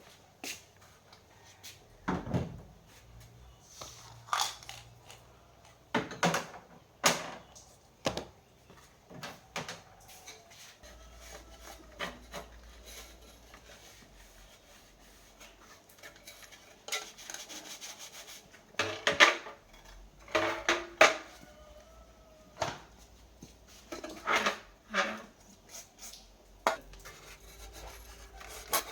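Irregular clicks, taps and clatter of small hard tools and parts being handled and set down, loudest and busiest about twenty seconds in.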